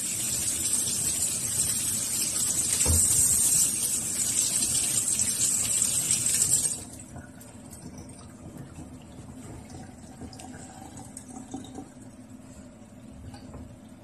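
Kitchen faucet running, the stream splashing onto potatoes being rubbed clean by hand in a stainless-steel sink, then shut off abruptly about halfway through. After that only faint knocks of potatoes being set down on the sink's wire rack.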